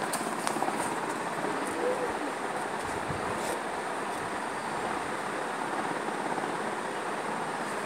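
Steady rushing background noise, with a few faint clicks near the start and about three and a half seconds in.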